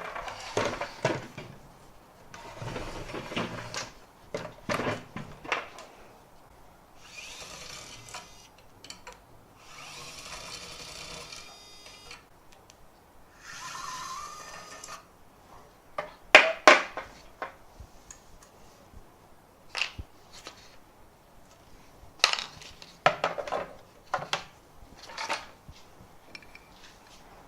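ES121 cordless electric screwdriver running in three short whirring bursts, each a second or two long, as it drives screws out. Sharp clicks and the clatter of handled parts and screws come before and after the bursts, loudest a few seconds after the last one.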